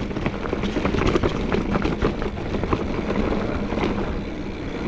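Trek Fuel EX 5 full-suspension mountain bike riding over a rough dirt trail: a steady tyre rumble with many rattles and knocks from the bike.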